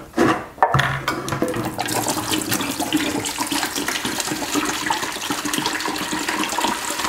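Liquid cleaner pouring from a metal can into an empty plastic bucket, a steady splashing that starts about a second in.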